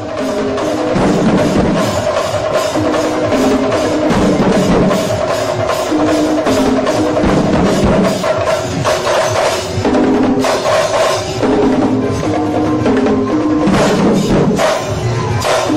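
Loud drum music: drums beaten in fast, dense strokes, with a melody of held notes stepping up and down over them.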